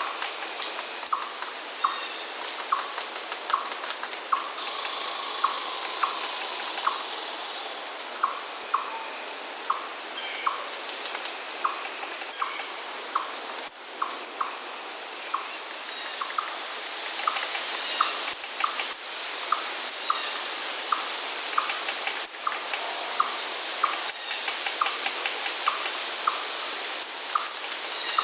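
Steady, shrill chorus of crickets or other insects, with a short lower call repeating about twice a second and scattered brief bird chirps.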